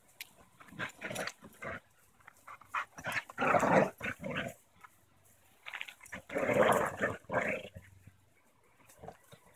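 Two dogs play-growling as they tug a rope toy between them, in irregular bursts, the two loudest lasting about a second and a half each.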